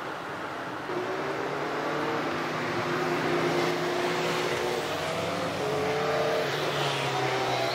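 A road vehicle's engine accelerating, off camera. Its pitch rises several times over a steady background noise.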